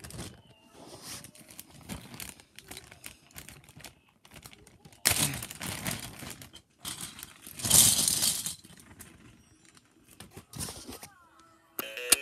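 Rustling and crinkling handling noise with scattered clicks, louder for two stretches about five and eight seconds in.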